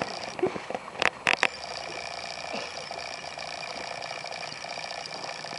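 A ceramic coffee mug knocked and tipped about on straw-covered ground by an animal's muzzle: a few sharp knocks and clinks, with a quick cluster of three about a second in, then only small ticks over a steady background hiss.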